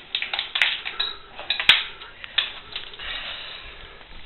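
Plastic treat-dispenser bottles being tipped and knocked about, clattering with cat treats rattling inside: a quick run of clicks and rattles, one sharp loud click a little under two seconds in, then scattered lighter clicks.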